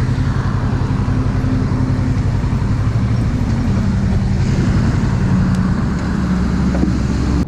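Motorcycle engine running steadily, most likely the rider's Kawasaki Versys, its pitch stepping down a couple of times as engine speed changes.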